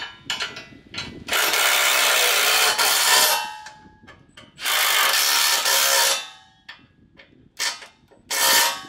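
Milwaukee cordless impact wrench hammering a side-step mounting bolt tight, in two runs of about two seconds and a second and a half, then short blips near the end as the bolt snugs up.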